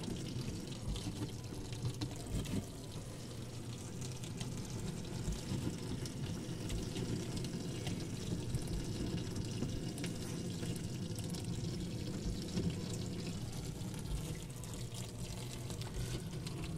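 Steady rush of a stream of water spraying against a car windshield, heard from inside the cabin.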